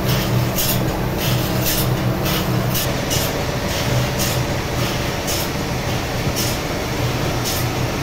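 Machinery engine running steadily with a low, even hum, cut through by short hissing bursts at uneven intervals.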